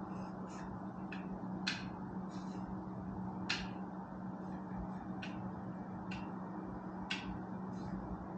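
Scattered light clicks and taps, about a dozen at uneven intervals, from parts and tools being handled, over a steady low hum.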